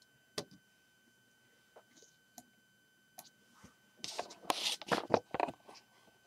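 Handling noise on a tabletop: a single click, a few faint ticks, then a cluster of scraping and rustling from about four to five and a half seconds in.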